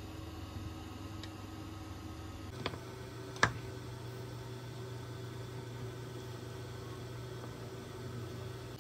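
Steady hum of an induction hob heating a pan of water. About three seconds in, two ceramic clinks less than a second apart, the second louder, as a ceramic bowl is set down in the pan.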